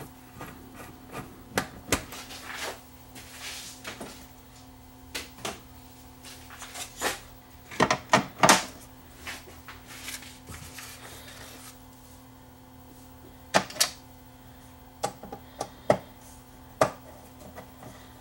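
Handling sounds from an upside-down turntable during reassembly: scattered clicks and knocks of its plastic and metal parts, with a brief scrape about three seconds in, a loud cluster of knocks around eight seconds in, and a few sharp taps near the end.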